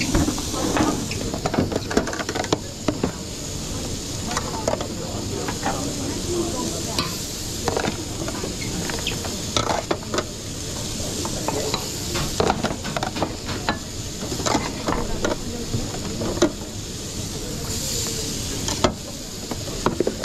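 Food sizzling in a hot pan, with a steady hiss, while a utensil stirs it, clinking and scraping against the pan many times.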